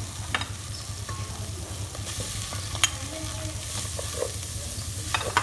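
Green paste sizzling as it fries in oil in an aluminium pot, stirred with a metal spoon. The spoon clinks against the pot a few times, most sharply a little past halfway, over a steady low rumble.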